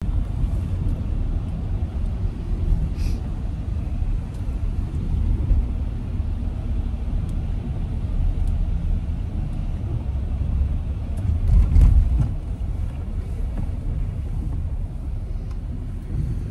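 Road and engine noise inside a moving car's cabin, a steady low rumble that swells briefly about twelve seconds in.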